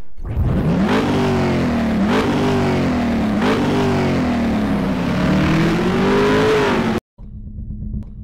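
Car engine accelerating hard through the gears: the pitch climbs and drops back at each of three quick upshifts in the first four seconds, then climbs more slowly before cutting off abruptly near the end. A quieter steady low hum follows.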